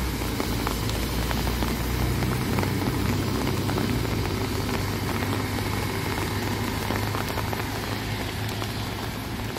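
City bus pulling away from a stop and driving off, its engine hum rising as it accelerates and then slowly receding, under steady rain falling on wet pavement.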